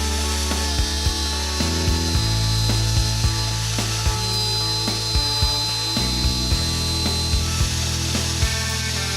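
Shaper Origin handheld CNC router cutting into wooden baseboard, a steady high whine with cutting noise, under background music with sustained bass notes and a steady beat.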